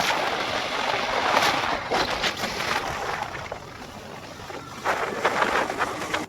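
Wind rushing over the microphone in uneven gusts. It eases for about a second midway, then swells again.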